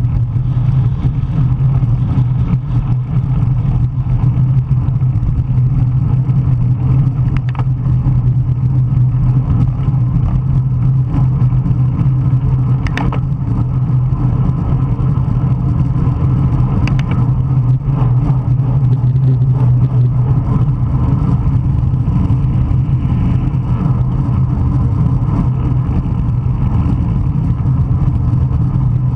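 Heavy wind noise on the microphone of a camera riding along in a bicycle race in strong wind: a loud, steady low rumble, with a few faint clicks.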